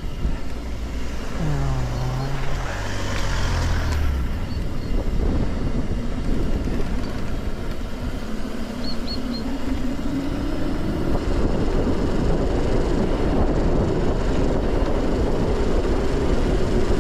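Motor vehicle engine over a steady low road-and-wind rumble. About two seconds in an engine note drops in pitch, as a vehicle slows or goes by. Around the middle an engine note climbs steadily and then holds.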